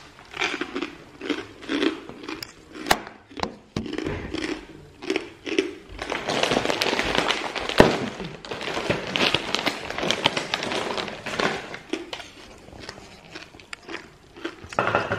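Crunchy snack being chewed and a plastic snack bag crinkling and rustling as it is handled. The crinkling is densest in the middle, with a few sharp crackles.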